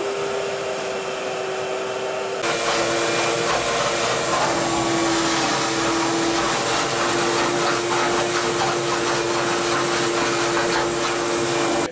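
Shop vac running steadily, sucking floodwater out of a flooded pump-house pit. About two and a half seconds in it gets louder and its pitch drops a little.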